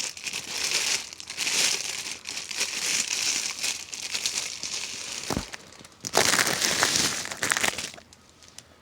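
Packaging crinkling and rustling in irregular bursts as it is handled and pulled off a new fan, with a dull thump about five seconds in; the crinkling stops near the end.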